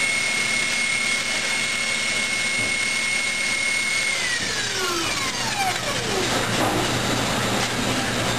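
A steady rush of machine noise with a high whine on top. About four seconds in, the whine glides steadily down in pitch over about two seconds, like a motor winding down after being switched off.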